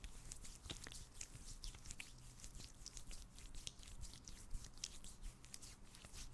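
ASMR mouth sounds close to the microphone: a quick, irregular run of small wet clicks and smacks, kept soft.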